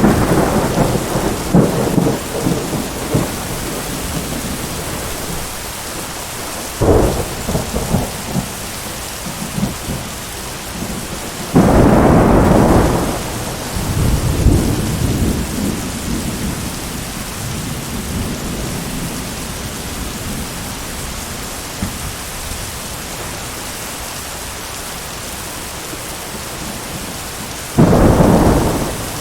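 Steady hiss of heavy rain with thunder. Rumbling at the start fades, then there is a short clap about 7 seconds in, a loud crack about 12 seconds in that rolls on into rumbling, and another loud clap near the end.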